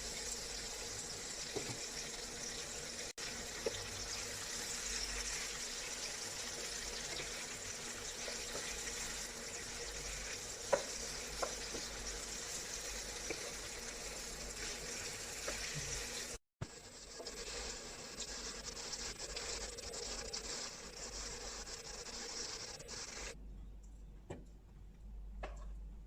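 Chicken and bell peppers sizzling in a frying pan, with a few sharp clicks of a utensil against the pan. The sizzle drops away near the end.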